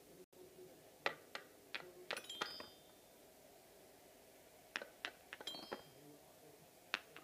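A wooden toy hammer tapping and knocking on a wooden pound-a-ball bench in two short flurries, with a couple of brief metallic xylophone notes ringing as a pounded ball drops through onto the keys.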